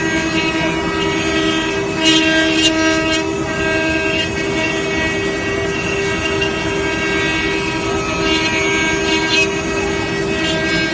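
Multi-spindle (20-head) CNC wood router running: its many spindle motors whine together in a steady chord of several tones. The bits cutting into the wooden boards add louder, noisier patches about two seconds in and again around eight to nine seconds.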